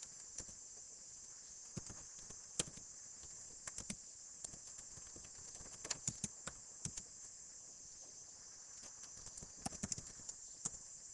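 Computer keyboard typing: irregular short key clicks in quick clusters, with a pause of a couple of seconds past the middle, over a steady high hiss.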